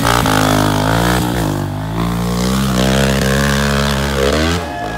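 Small single-cylinder dirt bike engine revving hard under load as it climbs, its pitch rising and dipping as the throttle is worked and dropping away near the end.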